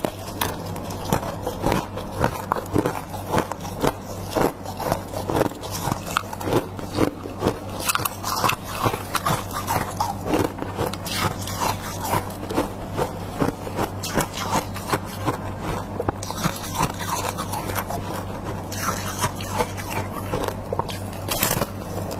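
Freezer frost being bitten and chewed close to the microphone: a dense, irregular run of crisp crunches with some scraping, over a steady low hum.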